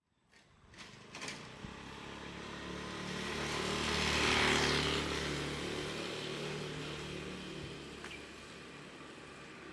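A motor vehicle passes by: engine and road noise swell to a peak about four and a half seconds in, then slowly fade.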